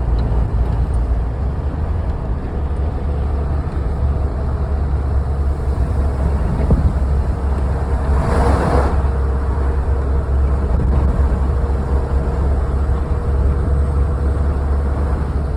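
Strong wind buffeting the microphone at road speed, a heavy low rumble over the steady drone of the vehicle and road. A brief louder rush comes about eight seconds in.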